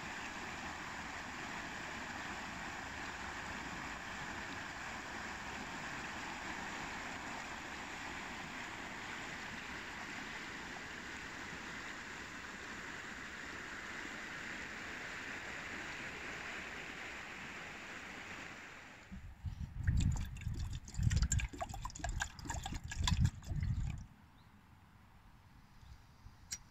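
Shallow river running over a rocky riffle, a steady rushing of water. About nineteen seconds in it cuts off abruptly, and for some five seconds loud irregular thumps and rustles take over. A quieter stretch with a few faint clicks follows.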